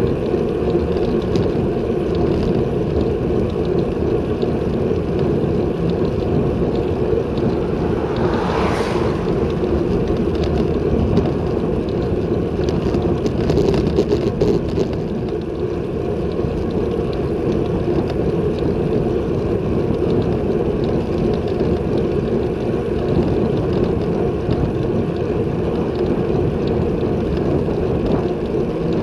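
Wind rushing over a handlebar-mounted action camera's microphone on a road bike moving at about 27 km/h, a steady rumbling hiss with a brief swell about nine seconds in.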